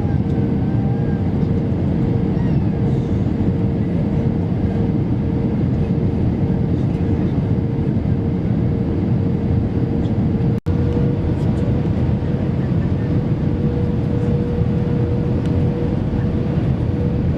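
Airliner on its landing descent: a steady, loud low rumble of jet engines and rushing air with a constant hum over it. The sound cuts out for an instant about ten seconds in.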